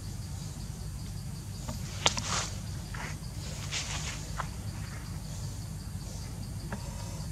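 Forest ambience: insects trilling steadily, over a steady low rumble, with a handful of short crackles and rustles of dry leaves, the sharpest click about two seconds in.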